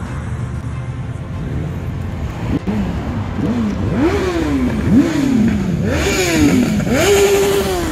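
A group of motorcycles approaching with a low engine rumble; from a few seconds in, riders blip their throttles again and again, each rev rising quickly in pitch and falling away, the revs overlapping and growing louder toward the end.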